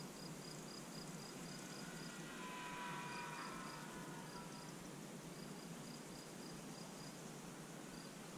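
Crickets chirping steadily, about four chirps a second with brief pauses. A faint whine of several tones rises about two and a half seconds in and fades about two seconds later.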